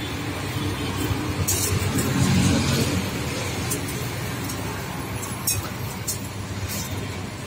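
Steady roadside traffic, with a vehicle passing louder about two seconds in, over a paratha sizzling in oil on a large flat tawa as a ladle presses it, with a few short clicks.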